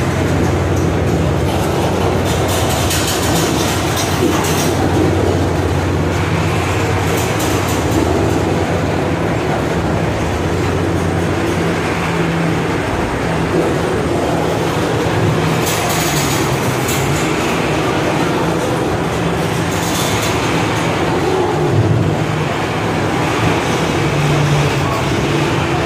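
Freight train of covered hopper cars rolling past close by: a steady rumble and clatter of steel wheels on the rails. A few brief, brighter bursts of higher-pitched wheel noise come through.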